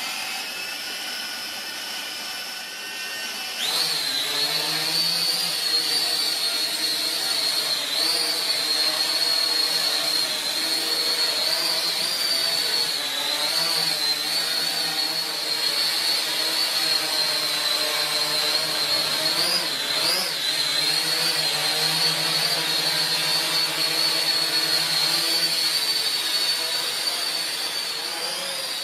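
Holy Stone HS110D quadcopter's motors and propellers whining, first spinning at a lower level on the ground, then jumping to a louder high whine about four seconds in as it lifts off and flies. The pitch wavers up and down as it manoeuvres.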